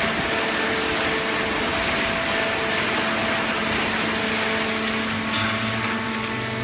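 A machine running steadily: even mechanical noise with a steady hum over it, and a lower hum coming in near the end.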